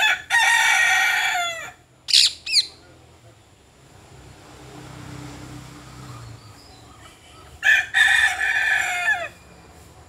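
A rooster crowing twice, each crow about a second and a half long and dropping in pitch at the end: once at the start and again about eight seconds in. Two short, high calls come between them, about two seconds in.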